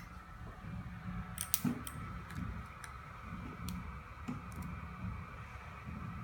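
A handful of short sharp clicks, a cluster about a second and a half in and single ones later, over a low rumble and a faint steady high hum.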